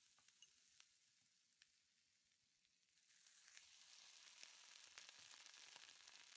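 Butter and food sizzling on a hot sizzling plate: a steady hiss with scattered crackles and pops, growing louder and busier about three seconds in.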